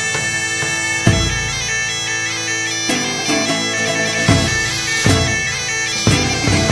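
Medieval-style music: bagpipes playing a tune over a steady drone. A drum strikes once about a second in, then beats regularly from about four seconds in.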